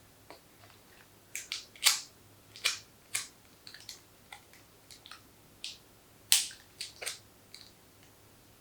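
A run of short, irregular crackles and snaps: sharp handling noises of hands working with materials at close range, with a louder snap about six seconds in.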